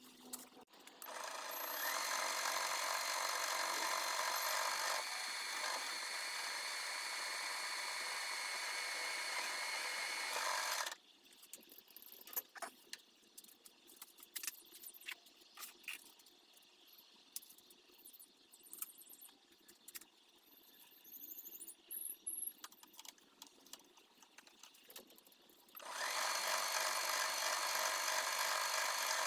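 A small metalworking machine tool's motor running steadily for about ten seconds, then switched off. Scattered clicks and light knocks of handling metal parts follow, and the machine starts again near the end.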